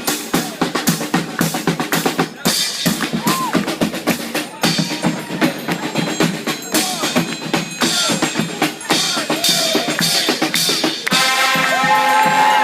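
Band percussion playing a busy drum beat of snare, bass drum and rim clicks. About eleven seconds in, the trombone choir comes in over it with loud held chords.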